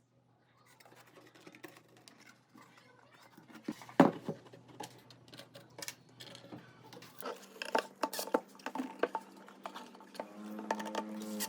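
Light clicks and knocks of small hard objects being handled, with a sharper knock about four seconds in. A steady hum with higher tones joins about seven seconds in.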